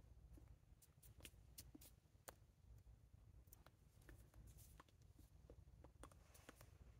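Near silence: a low steady hum with scattered faint clicks and soft rustles, from hands brushing and tapping against a jacket during sign language.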